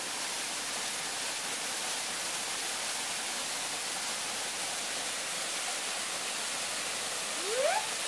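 Waterfall pouring into a shallow rock pool: a steady rush of water. A short rising call cuts through near the end.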